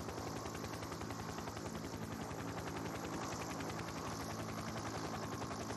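Helicopter rotor chopping in a fast, even beat with a steady low hum, the background sound of live road-race television coverage.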